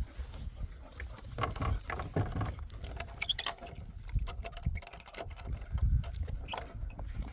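Footsteps crunching and scuffing along a rough track at walking pace, with wind rumbling on the microphone.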